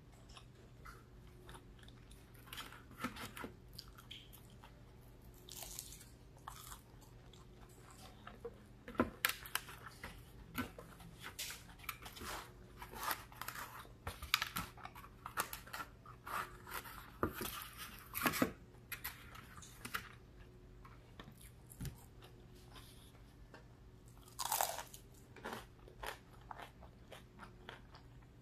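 Close-up chewing and crunching of breaded fried fish and crinkle-cut fries, in clusters of short crackles that are thickest through the middle. A steady low hum runs underneath.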